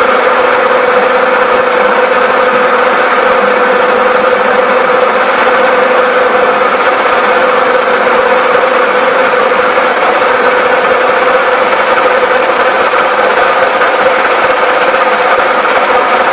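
1V61 screw-cutting lathe running steadily: an even mechanical hum with a constant mid-pitched tone.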